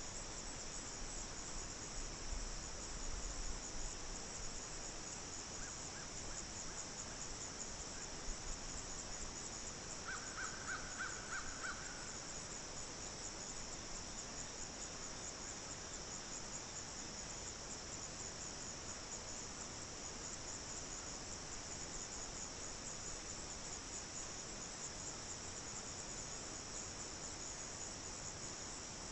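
A steady chorus of insects chirping in a fast, even pulse, high in pitch. About ten seconds in, a bird calls in a quick series for about two seconds, and a few low bumps come in the first few seconds.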